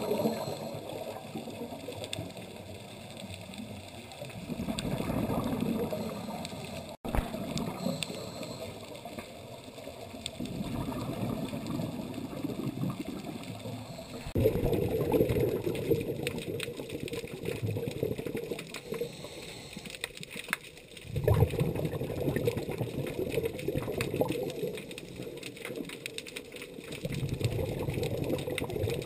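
Muffled underwater water noise with gurgling surges of scuba exhaust bubbles every several seconds.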